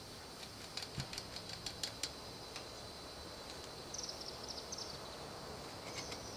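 Faint clicks of small metal parts being handled at a bicycle rear wheel's hub, with a run of light clicks in the first couple of seconds and a quicker run of high ticks about four seconds in.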